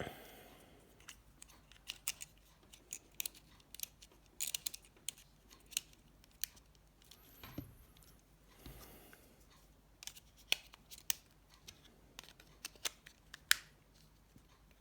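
Irregular sharp clicks and taps of a Nokia 7373 mobile phone's plastic housing being handled and tested after reassembly, with a few soft rustles.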